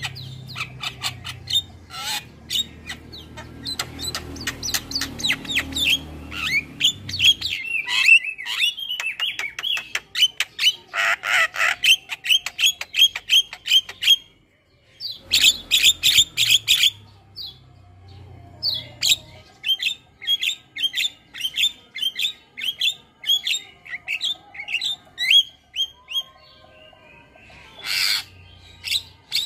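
Javan myna (jalak kebo) calling: rapid runs of sharp chirps and short whistled notes, broken by a brief pause about halfway through.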